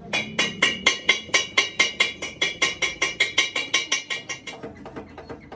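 Rapid hammer blows on a steel bearing driver, about six a second, each with a metallic ring, driving a new Toyota Hiace wheel hub bearing down onto the hub. The blows weaken after about three seconds, the ringing stops about four and a half seconds in, and a few softer knocks follow.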